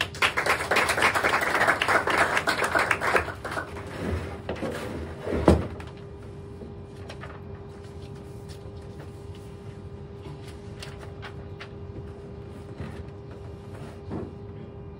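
Brief audience applause for about three seconds, then a single sharp thump about five and a half seconds in. After that a quiet room with a steady hum and a few faint shuffles and creaks.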